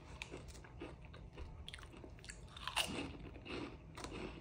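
A person chewing a crunchy snack: faint, irregular crunches.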